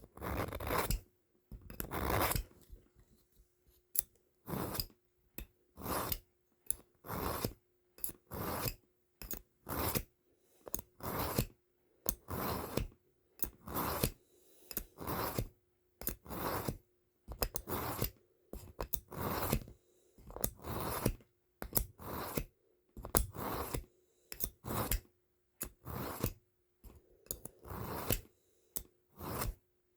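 A steel knife blade drawn across a sharpener in repeated short scraping passes, about one stroke a second, some two dozen in all.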